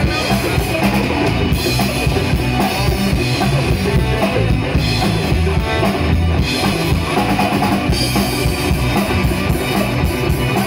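A live band playing loud amplified rock-style music on drum kit, bass and electric guitars.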